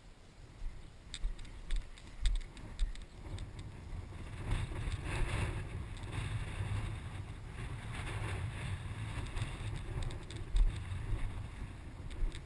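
Wind buffeting the body-worn camera's microphone as a low, steady rumble that builds about four seconds in, with the handler's footsteps swishing through knee-high grass and a few knocks in the first few seconds.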